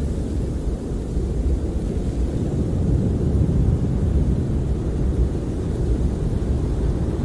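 Snowstorm wind heard from inside a camper: a steady deep rumble that swells and eases slightly in gusts.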